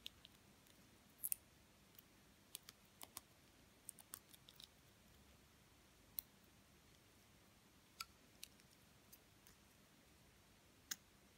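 Scattered faint clicks and crinkles from fingers handling a small plastic jar of UV gel and picking at its foil seal, with near silence between them.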